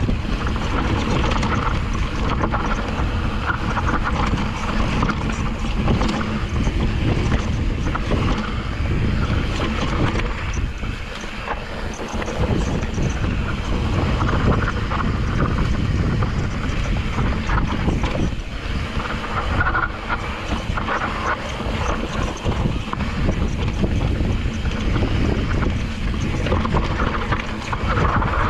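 Wind buffeting the microphone on a fast mountain-bike descent. Under it the YT Decoy's tyres, chain and frame clatter and rattle over rough, rocky trail.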